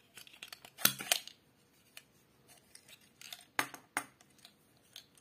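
Sharp plastic clicks and taps from a small plastic sliding-drawer magic coin box being worked by hand, its drawer slid in and out. The clicks come in a pair about a second in and another pair near four seconds, with lighter ticks between.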